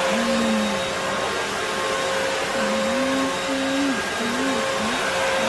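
VO.TEMM vacuum cleaner running steadily: a rush of suction air with a constant motor whine.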